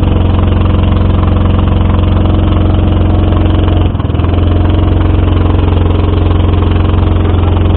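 Boat engine running steadily at an even speed, loud and close, with a brief dip about four seconds in.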